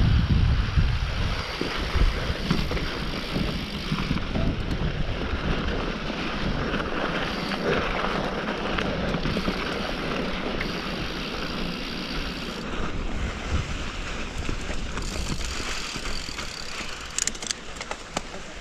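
Mountain bike descending a dirt trail: tyres rolling and rattling over dirt and rocks, with wind rushing on the microphone. The noise eases toward the end, with a few sharp clicks.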